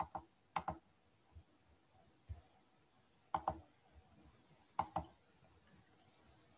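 Faint computer mouse clicks: a handful of short clicks, several in quick pairs, spaced about a second apart, as the on-screen PDF slide is operated.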